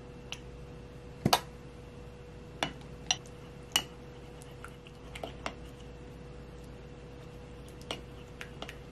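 About ten short, light clicks and knocks of small hard objects being handled, the loudest a quick double knock about a second in, over a steady faint hum.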